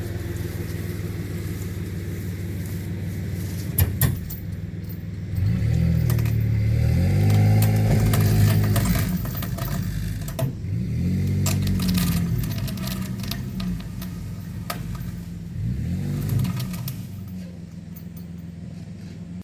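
Small truck engine running, revved up three times under load as it drags a log, each rev rising and falling in pitch. There are a couple of sharp knocks about four seconds in.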